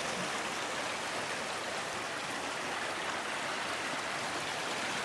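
Creek water rushing and splashing over rocks: a steady, even rush.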